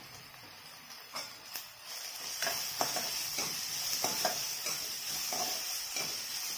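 Chopped onions and green chillies sizzling in hot oil in a black pan, stirred with a metal ladle that scrapes the pan in short repeated strokes. The sizzle and stirring start up about two seconds in.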